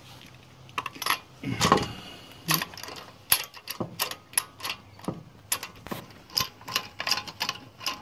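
Hand ratchet with a socket and extension running a lug nut down onto a wheel stud, clicking about three times a second. A metal clank sounds about a second and a half in. The nuts are being run down by hand before the final torque.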